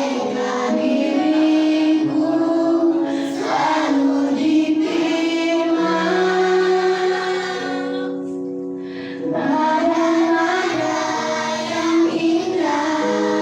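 A group of voices, sounding like children, singing a song together in long held notes over steady instrumental accompaniment.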